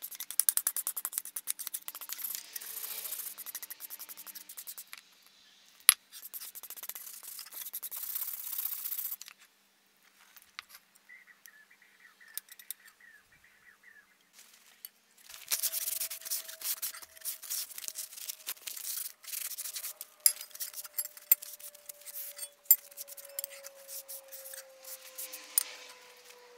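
Rust being scrubbed by hand off the steel blade of an antique drawknife, in fast back-and-forth scraping strokes. There are two long spells of scrubbing with a quieter pause of several seconds between them.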